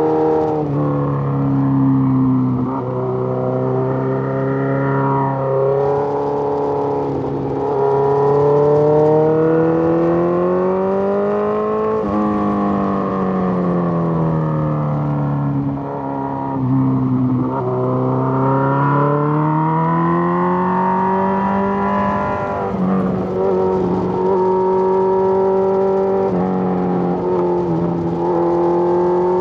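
Suzuki GSX-R1000's inline-four engine pulling through the gears: its pitch rises and falls in long sweeps every few seconds as the bike accelerates and eases off, with a few sudden drops and steps in pitch.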